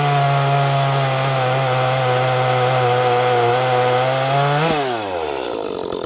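Small 30cc-class Echo chainsaw at full throttle cutting through an oak round, its revs sagging slightly under load. About three quarters of the way through the throttle is released and the engine drops back to idle.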